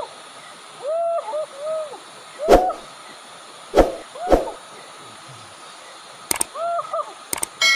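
A series of short hooting calls, each rising then falling in pitch, with a few sharp clicks in between.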